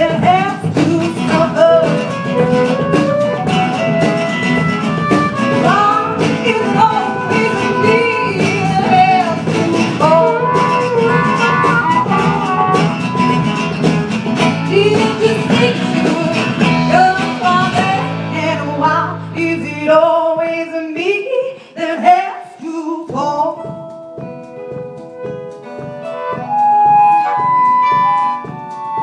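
Live band playing a song, with electric bass, acoustic guitar and drum kit in a full instrumental passage. About eighteen to twenty seconds in, the bass and drums drop out, leaving sparse single notes ringing.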